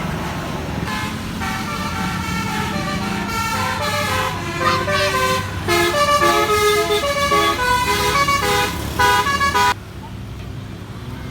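A bus's Basuri telolet horn, a multi-tone musical horn, playing a quick melody of short stepping notes for about eight seconds and cutting off suddenly near the end, over a low vehicle rumble.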